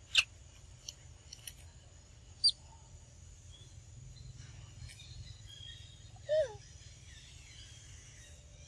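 A few short animal calls over a quiet outdoor background: a sharp chip just after the start, a brief high chirp about two and a half seconds in, and a short falling call a little after six seconds.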